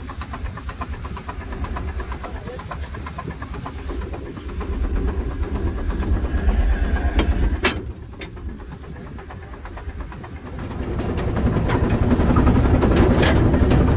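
Avery 18 hp steam traction engine running under steam: a steady rhythm of exhaust beats over hissing steam and a low rumble, with one sharp knock about eight seconds in. It grows louder and fuller from about eleven seconds on.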